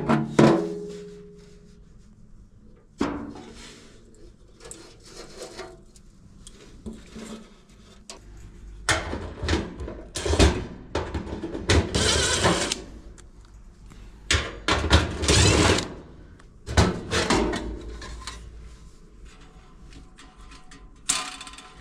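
Hand work on a Whirlpool electric dryer's sheet-metal cabinet: scattered knocks and clanks of panels and parts being handled, with a short metallic ring near the start and a busier stretch of loud banging and scraping in the middle.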